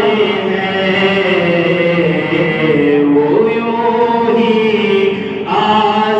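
A voice chanting a naat, an Islamic devotional poem, in long held notes that bend slowly up and down, breaking briefly about five seconds in.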